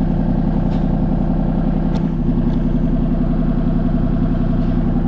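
Excavator's diesel engine running steadily at idle, with a few faint clicks over it.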